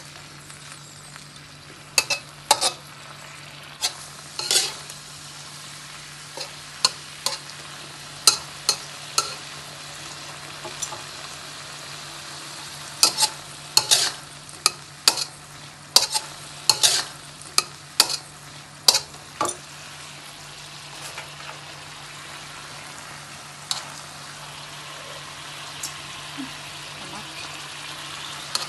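Green beans stir-frying in a metal wok with a little water added: a steady sizzle under the spatula clanking and scraping against the wok in quick runs, thickest in the middle stretch and sparser near the end.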